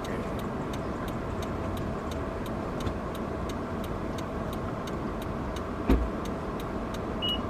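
Steady car or traffic noise with a faint regular ticking, about three ticks a second, and a single short thump about six seconds in.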